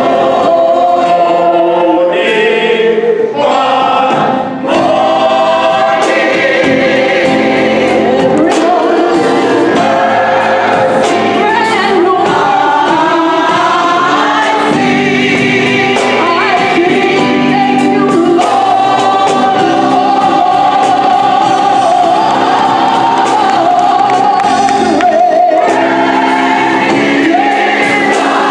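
Gospel choir singing with a soloist at the microphone, backed by a live band of bass guitar and drum kit.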